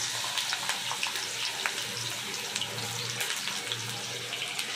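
Eggplant wedges frying in hot oil in a kadai: a steady sizzle with many fine crackles.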